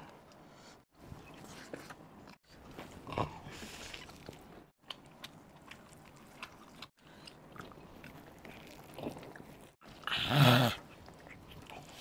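Close-up eating sounds: faint chewing, smacking and slurping of spicy noodles and saucy chicken eaten by hand, in short snippets with brief silent gaps between them. About ten seconds in there is one louder, short voiced mouth sound from an eater.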